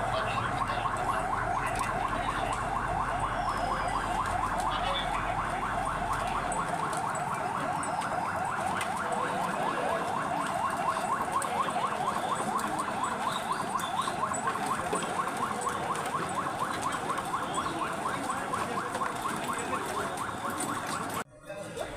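Electronic siren in a rapid, steady yelp, sweeping up and down several times a second, with a low rumble under it for the first several seconds. It cuts off suddenly about a second before the end.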